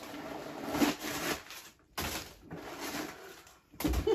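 Crumpled packing paper rustling and crinkling as it is pulled out of a stuffed backpack, in two stretches with a short break between them, then a low thump near the end.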